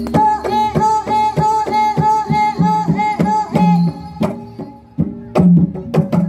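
Live Javanese gamelan accompaniment for a masked folk dance, played loud through a sound system. A high melody instrument repeats one note about three or four times a second over sharp kendang drum strokes, then falls away to lower notes and drum hits near the end.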